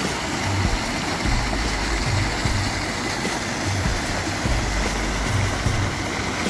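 Fountain water jets splashing steadily into a pool, a continuous rushing spray, with a low rumble of road traffic beneath.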